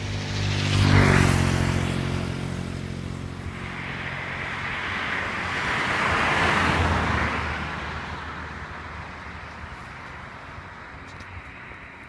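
Road vehicles passing by. One with a low engine hum is loudest about a second in. Then a rush of tyre noise swells to a peak around the middle and fades away.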